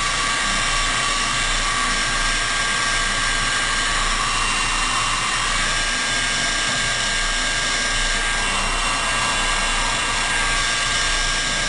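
Electric heat gun on its low setting, running steadily: an even rush of blown air with a constant motor whine.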